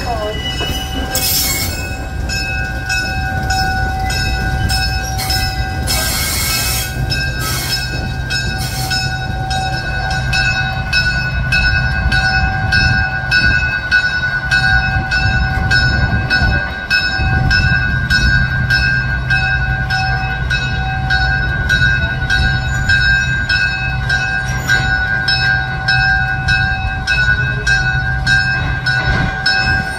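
GE 25-ton diesel locomotive moving slowly, its bell ringing with evenly repeated strikes over the low, steady running of its diesel engine. Two short bursts of hiss come about a second in and again about six seconds in.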